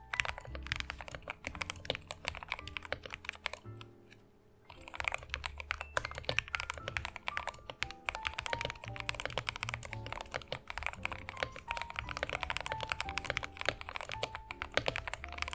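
Typing on a modded Yunzii KC68 mechanical keyboard fitted with a mix of different keycap sets: fast, dense keystroke clacks, with a short pause about four seconds in. Background music plays underneath.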